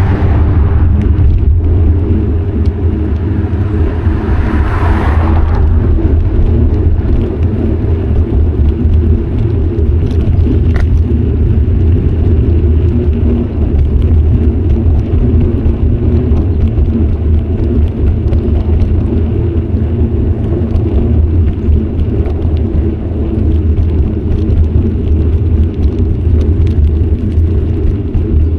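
Steady low rumble of wind and riding noise on a bicycle-mounted action camera's microphone, with a vehicle hissing past about five seconds in.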